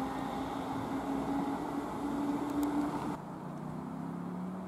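Class 322 electric multiple unit running past at close range: a steady rumble and hum with a tone that rises slightly. About three seconds in the sound cuts suddenly to a quieter, lower steady hum.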